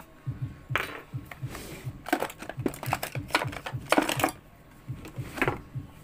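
Irregular sharp clicks and clatter of a metal tool working against the plastic cabinet of a home theater unit as it is being opened.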